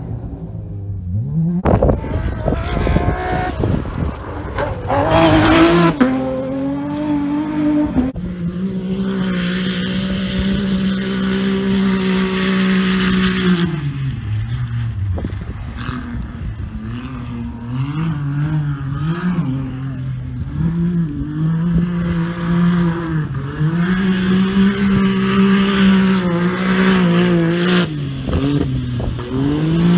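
Off-road buggy engine revving as it is driven hard around a dirt course, its pitch climbing, holding steady and dropping again over and over. A brief rushing noise comes about five seconds in.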